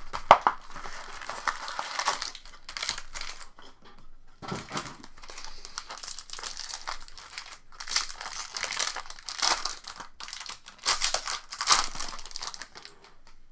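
Foil wrapper of a Bowman Chrome baseball card pack crinkling and tearing as the pack is torn open and the cards slid out, in repeated irregular bursts.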